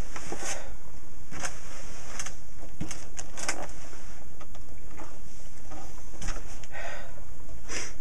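Books handled on a table: a book set down, then a large book opened and its pages turned, giving short rustles and light taps scattered over a steady low background hiss.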